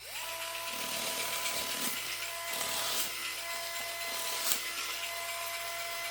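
A battery-powered cordless rotary paper cutter's small motor spins up and runs with a steady whine as its blade cuts through paper folded into four layers. A few brief crackles come from the paper.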